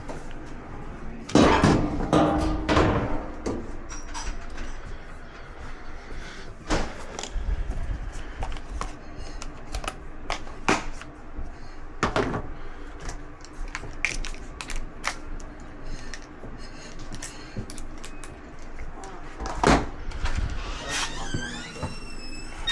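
Irregular knocks, clunks and clicks of dryer panels and parts being handled during disassembly, loudest in a clatter about a second and a half in, with a brief wavering high squeak near the end.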